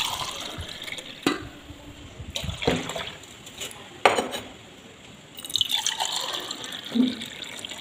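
Mango sherbet poured back and forth between a steel bowl and a steel tumbler to froth it, splashing as it streams in. Three sharp metal knocks come in the first half, and a longer splashing pour comes near the end.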